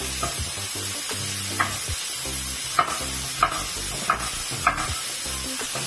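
A knife cutting chayote squash on a wooden cutting board: about six short sharp strikes of the blade through the squash onto the board. Beneath them runs a steady sizzle of tomato, garlic and onion frying in a pan.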